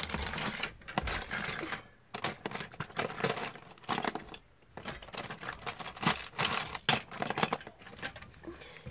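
Rummaging and handling noise: a rapid, irregular run of clicks, taps and rustles as cardboard game boxes are shifted and handled.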